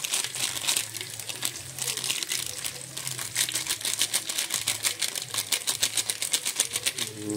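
A foil sachet of sinigang soup mix is shaken and tapped over a pot, its packet crinkling in a quick run of ticks as the powder pours out, busiest in the second half. A low steady hum runs underneath.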